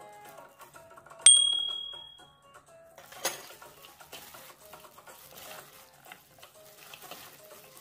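A bright, bell-like ding sound effect about a second in, ringing out and fading over about a second, then a short sharp hit about two seconds later, over quiet background music.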